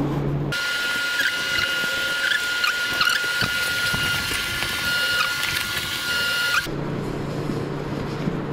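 A backpack being handled, with a low steady hum behind it. About half a second in, this gives way abruptly to a steady high whine sprinkled with quick squeaky chirps. The whine cuts off suddenly near the end, and the low hum and handling return.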